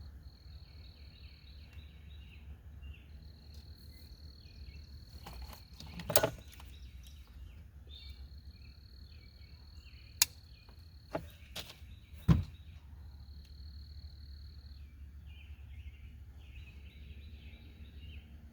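Insects chirping and trilling steadily over a low hum, with a few sharp clicks and knocks, the loudest about six and twelve seconds in.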